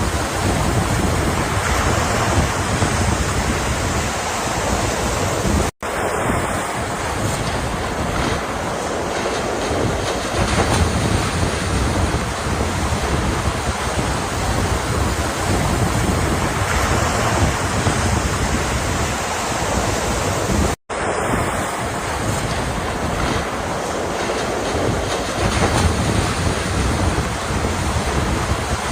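Ocean surf: waves washing in a continuous rushing wash that swells and eases. It cuts out to silence for an instant twice, about six seconds in and again about twenty-one seconds in.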